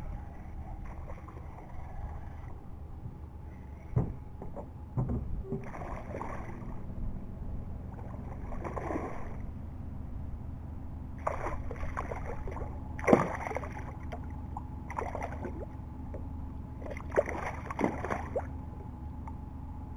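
A hooked smallmouth bass splashing and thrashing at the water's surface beside the boat, in repeated bursts that grow heavier in the second half, the loudest about two-thirds of the way through, over a steady low hum.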